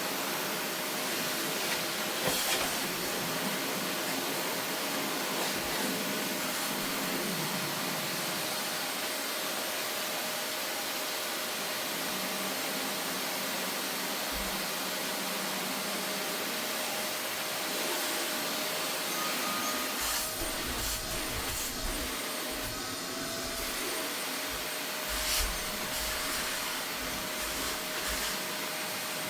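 Vacuum cleaner running steadily, a constant hiss with a steady whine. From about twenty seconds in, irregular low bumps and rubbing join it as the nozzle is worked over a surface.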